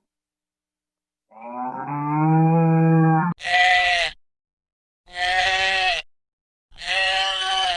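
Bleating farm animal played as a sound effect: one long, lower call from about a second in, then three shorter, higher bleats about a second and a half apart.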